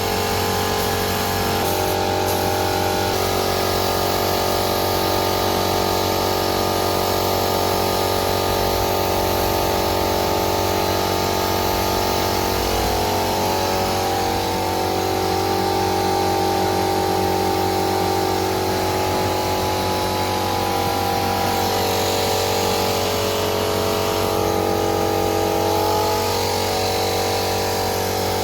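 An electric power tool's motor running continuously, its pitch wavering slightly as the load changes.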